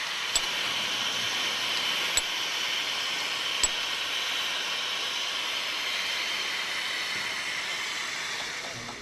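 Steam hissing steadily from a steam engine, with three sharp clicks in the first few seconds.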